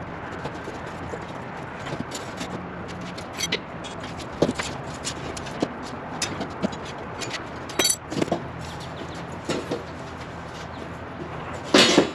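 Urinal divider panel being worked in its snug-fitting welded steel frame: scattered knocks, clicks and scrapes, with the strongest knock near the end, over steady background noise.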